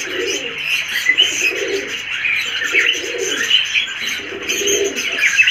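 White masakali fantail pigeons cooing in repeated low rolling calls as they strut and display. Small cage birds chirp and twitter high over the coos.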